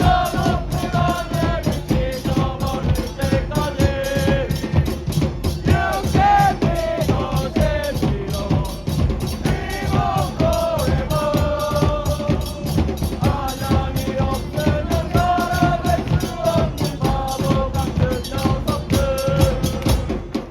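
Music with a fast, steady drum beat and a melody over it; it cuts off suddenly at the end.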